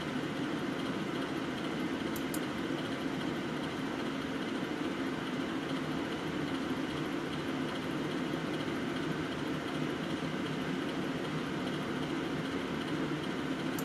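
Steady, unchanging background hum with a faint click about two seconds in.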